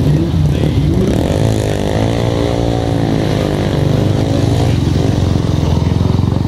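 Cooper 500 racing car's JAP single-cylinder engine running at a fast, even beat while warming up; partway through, an engine note rises and falls in pitch.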